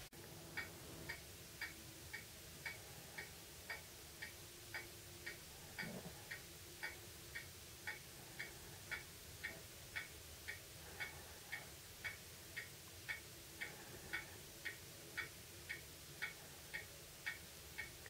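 Quiet, steady ticking at an even pace of about two ticks a second.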